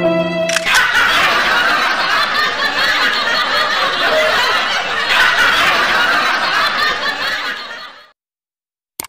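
Canned audience laughter from a sitcom laugh track, starting just under a second in as a sad violin tune breaks off, then fading out near the end. A single short click comes right at the end.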